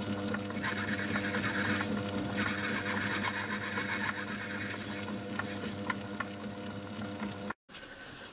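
Myford lathe running, with a steady motor and drive hum and a hiss that grows louder for the first few seconds. The sound stops abruptly near the end.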